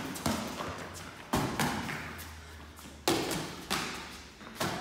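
Dull thuds of boxing-glove blows in a punching drill, about six in under five seconds at an uneven pace, each dying away quickly.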